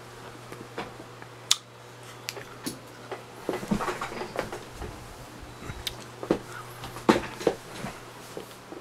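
Scattered light taps, clicks and knocks on a cluttered wooden desk, irregular and a few at a time, over a low steady hum.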